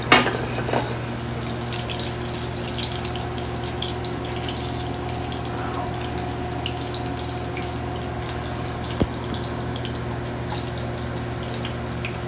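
Crushed garlic cloves bubbling gently in olive oil in a pan over a gas burner, a steady fine crackle over a constant low hum. A sharp click comes right at the start and a light tick about nine seconds in.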